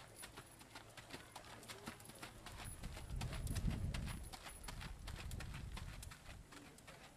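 Hoofbeats of a young Tennessee Walking Horse mare gaiting under saddle on a dirt track, a quick even run of muffled strikes. A low rumble swells up in the middle and fades again.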